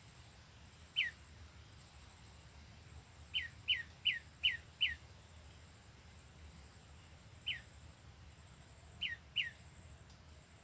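A small songbird, a prenjak lumut, giving short downward-sliding chirps: one, then a quick run of five, another single one, and a pair near the end. A steady faint high whine runs underneath.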